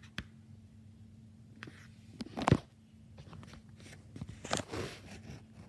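Quiet handling noise of a paper picture book: soft clicks and rubbing of a finger on the page, with one sharper knock about two and a half seconds in and a short paper rustle near the end.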